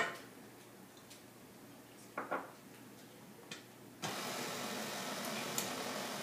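A sharp knock, then a couple of softer knocks about two seconds in, then about four seconds in an electric stand mixer switches on and runs steadily, beating butter and sugar.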